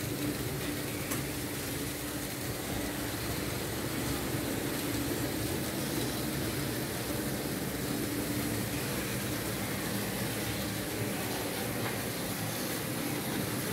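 Märklin H0 model trains running on the layout: a steady rumble of wheels on the track with a faint motor hum.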